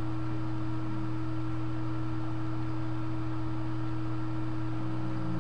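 Steady electrical hum from the recording, a low drone with a fainter higher tone over constant hiss, unchanging throughout.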